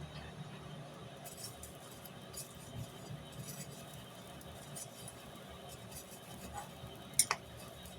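Light metallic clinks and ticks over a low steady hum, with one sharper clink about seven seconds in.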